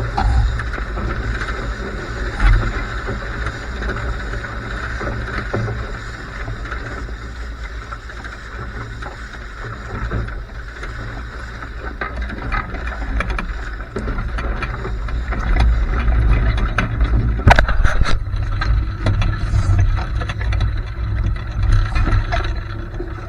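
Wind buffeting the microphone and water rushing past a Laser 2 sailing dinghy under way in strong wind, a steady heavy rumble with noisy spray and rushing above it. A couple of sharp knocks or slaps come about three quarters of the way through.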